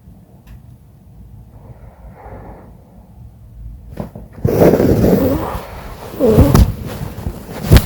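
A sleeping person breathing quietly, then from about halfway in loud, rough snoring with snorting surges. The snorer is ill, and her roommate says she snores more when ill.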